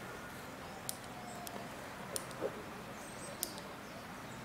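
Quiet outdoor ambience: a steady low hum with several sharp, high ticks scattered through it, and faint high chirps about three seconds in.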